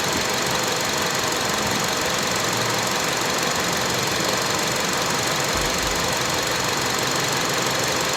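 2005 Honda CR-V's 2.4-litre four-cylinder engine idling steadily under the open hood.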